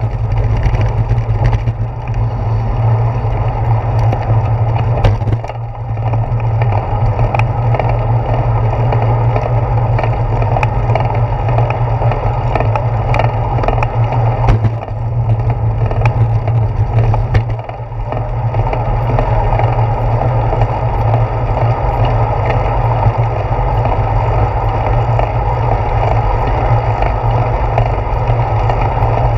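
Steady wind and road noise from a bicycle in motion, picked up by a handlebar-mounted GoPro: a heavy low rumble with scattered small clicks and rattles from the bike.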